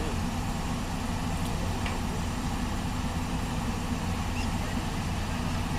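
Heavy construction machine's diesel engine running steadily with a deep, even drone, working hard during a recovery pull of a stuck wheel loader.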